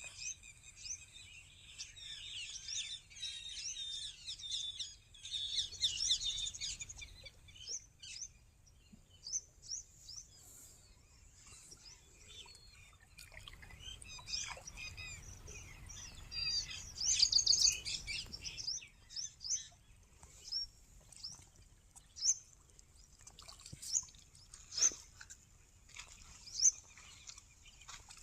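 Birds chirping and singing in a morning chorus, many calls overlapping, busiest in the first several seconds and again about halfway through, then thinning to single sharp chirps every second or two. A faint, steady high-pitched tone runs underneath.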